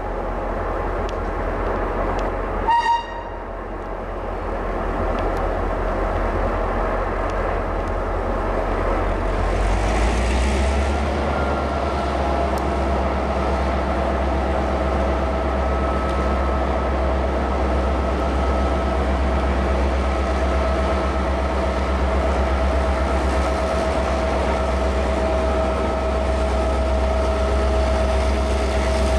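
HŽ Cargo class 2062 diesel-electric locomotive giving one short horn toot about three seconds in. Around ten seconds in its diesel engine throttles up and runs steadily under load as it starts a freight train.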